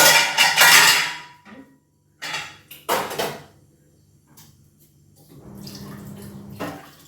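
Pots and metal utensils clattering and clanking: a loud burst in the first second, then two shorter knocks about two and three seconds in. A steady, quieter rushing noise starts about five and a half seconds in.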